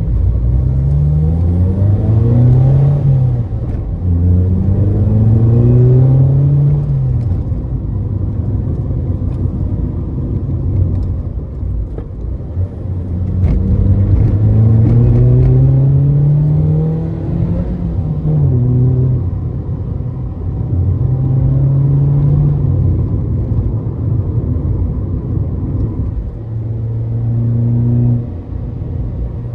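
Ford Fiesta ST150's four-cylinder petrol engine pulling hard through the gears on the road. Its note climbs in long rising sweeps and falls back at each gear change or lift-off, several times over.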